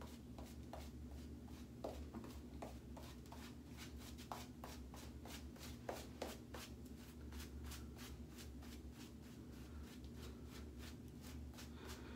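Badger-hair shaving brush working lather onto a stubbled face: faint, quick bristly strokes, a few each second.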